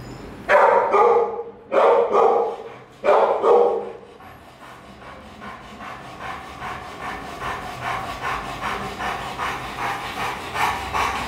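A dog barks in three loud outbursts in the first four seconds. After that a Rottweiler pants rapidly and rhythmically, about two to three breaths a second.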